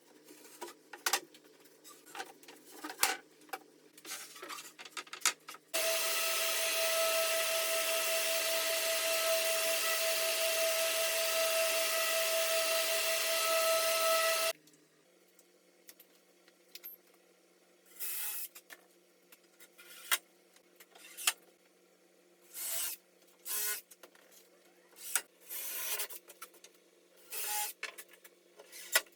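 A handheld power tool runs steadily for about nine seconds with a constant whine, starting a few seconds in. Short bursts of tool running and knocks of work on plywood come before it and after it.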